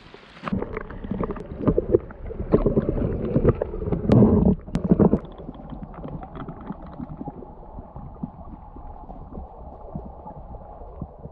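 River water splashing and gurgling right against the microphone for about five seconds, then a muffled, steady rush of water.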